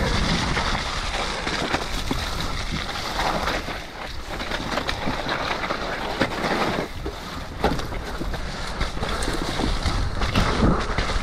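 Mountain bike tyres rolling fast over a damp dirt trail covered in leaves, with the bike knocking and rattling over bumps and wind rushing over the camera microphone.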